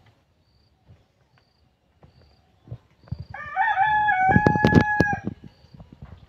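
A rooster crowing once, a call of about two seconds that rises and then holds its pitch near its end. A faint high chirp repeats about once a second throughout.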